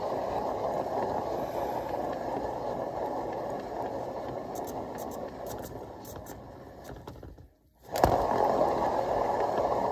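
Canvas spinner turning a freshly poured acrylic painting, giving a steady whirring rumble that slowly fades. It drops out for about half a second near the end, then starts again abruptly.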